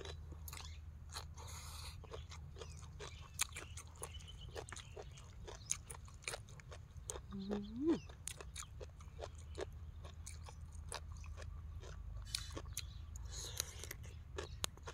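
A person chewing and crunching a mouthful of spicy Thai salad with rice noodles, with many small crisp crunches and clicks. A short rising tone comes about halfway through.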